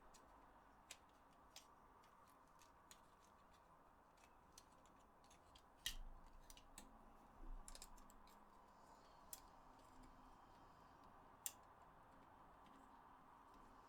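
Faint, scattered clicks and taps of small plastic parts being handled as a DualShock 4 controller's internals are fitted into its shell. The sharpest click comes about six seconds in, with a short clatter about a second and a half later, over a faint steady hum.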